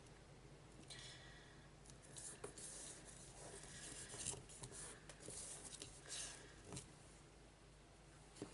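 Faint, irregular rubbing and sliding of paper and cardstock under the hands as glued panels are pressed and smoothed down, dying away near the end.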